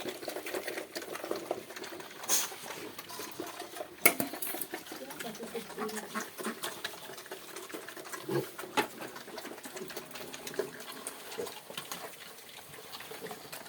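Pigs in a pen making low animal sounds amid many irregular clicks and knocks, with a sharp knock about four seconds in.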